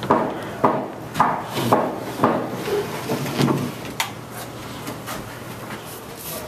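Wooden running mould sliding along a wooden guide rail and scraping over a wet lime-and-plaster cornice, in sharp scraping strokes about two a second, growing softer about halfway through.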